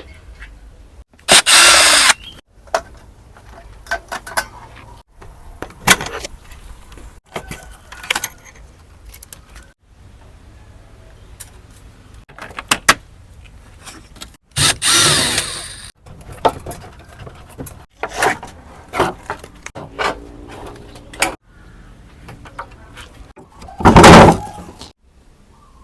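A power tool runs in three short bursts of about a second each, among scattered clicks and knocks of handling.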